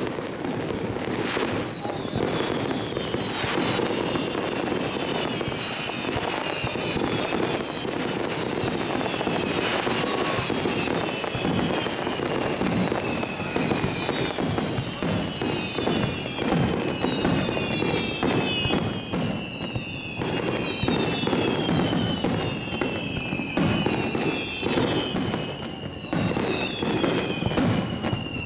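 Aerial fireworks display going off in a dense barrage: sharp bursts and crackling throughout, with many overlapping whistles that each fall in pitch, several at once near the end.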